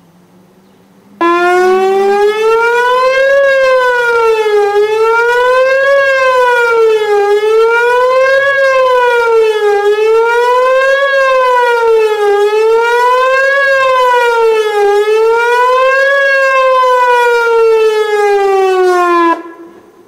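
Whelen WPS-2902 electronic outdoor warning siren sounding the attack signal, a loud tone rising and falling about every two and a half seconds. It starts suddenly about a second in and cuts off suddenly near the end.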